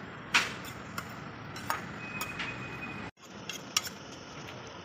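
Metal ladle knocking and scraping against a steel kadhai as chicken curry is stirred: several sharp clinks, the loudest just after the start and one leaving a short ringing tone, over a steady hiss. The sound cuts out for an instant about three seconds in.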